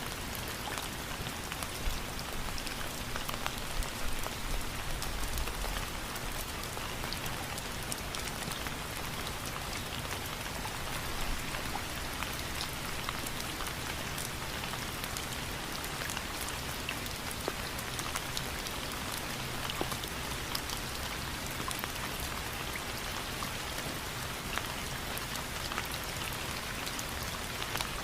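Steady rain falling, an even hiss with many fine individual drops pattering on a surface.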